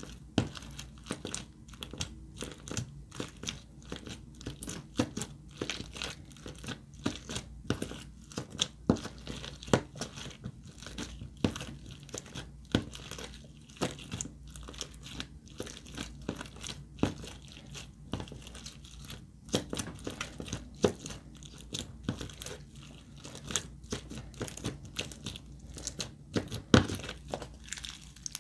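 Glossy slime being kneaded, squished and pressed by hand in a plastic tub: a steady stream of irregular sticky clicks and pops, several a second, with one louder pop near the end.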